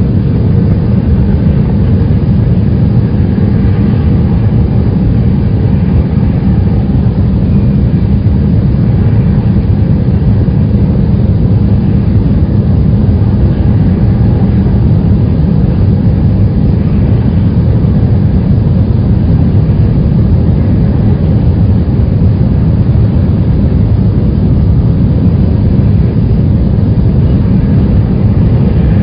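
Loud, steady deep rumbling drone, a sound-effect soundtrack for a space animation, holding the same level throughout without any sudden events.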